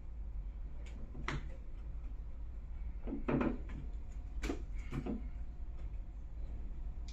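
Handling noise from a smartphone being turned over in the hands: a few soft knocks and taps, over a low steady hum.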